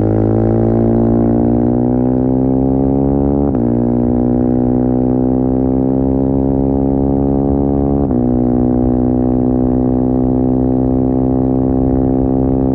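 KTM 390 Duke single-cylinder engine running through a decat Akrapovic slip-on exhaust, pulling under steady throttle with the revs creeping slowly up. There are two short breaks in the exhaust note, about three and a half and eight seconds in.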